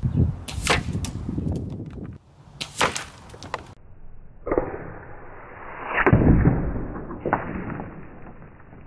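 A series of sharp cracks and knocks: shots from a .22 Kral Armour bullpup PCP air rifle and pellets striking plastic toy figures, the loudest about six seconds in.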